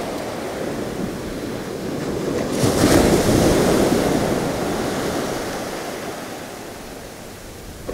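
Sea waves breaking and washing up a sandy beach: a wave surges about three seconds in, then its wash slowly fades as it draws back down the sand.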